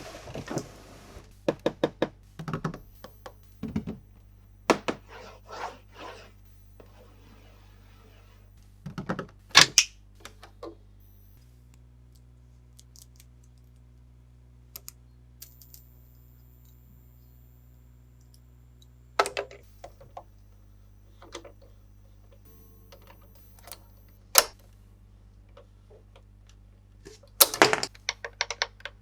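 Hands handling plastic toys and their packaging: scattered light taps, clicks and knocks with quiet gaps between them, and a soft rustle about eight seconds in.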